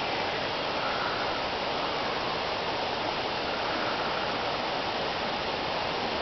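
Steady, even rushing noise with no distinct events, in the manner of flowing water; nothing from the bear stands out.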